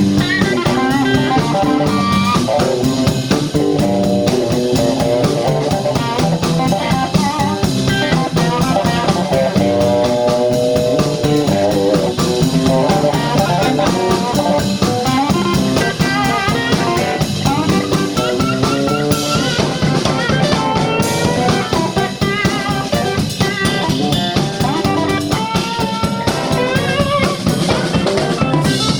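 Live blues band playing an instrumental stretch: two guitars, bass guitar and drum kit.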